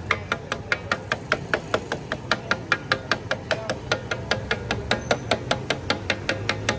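Metal spatulas striking a flat iron tawa griddle in a fast, steady clatter of about six or seven ringing strikes a second, as the daal is mixed and fried on it.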